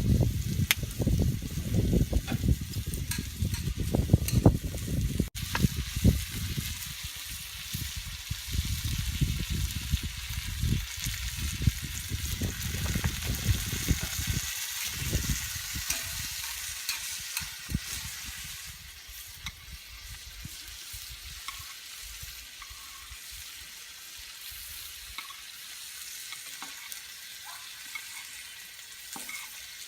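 Goya champuru frying in a pan over a campfire: a steady sizzle with scattered clicks and scrapes of stirring. A low rumble under it for the first several seconds drops away, and the sizzle eases slightly toward the end.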